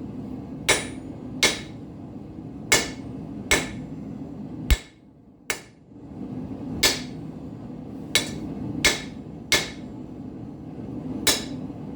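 A hand hammer strikes hot steel on an anvil to forge a nail: about eleven sharp blows at an uneven pace, with short pauses between groups. A propane forge runs steadily underneath and drops out briefly near the middle.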